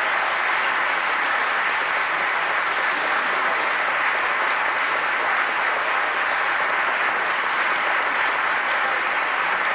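Steady audience applause, a dense even clapping.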